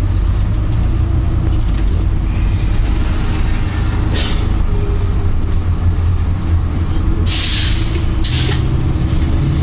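Volvo B9TL double-decker bus droning steadily with its diesel engine running, cut through by three short 'pshhh' hisses: one about four seconds in, a longer, stronger one around seven seconds, and a brief one just after it. On this bus the 'pshhh' comes every few seconds, far more often than the usual once every couple of minutes on B9TL Geminis.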